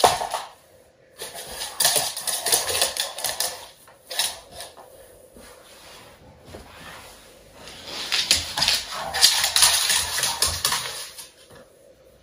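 Scuffling and rapid clicking of a chocolate Labrador retriever's claws and body on a laminate floor as it scrambles and play-wrestles with a person lying down. The sound comes in two busy stretches, the first about a second in and the second about two-thirds of the way through, with a quieter lull between.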